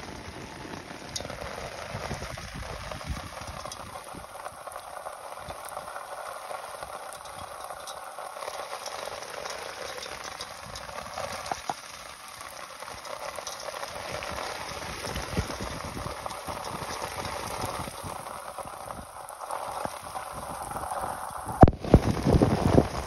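Continuous fine patter and trickle of water droplets on the surface of a flooded paddy, with small splashes as a gill net is lifted through the water. A louder burst of splashing comes near the end.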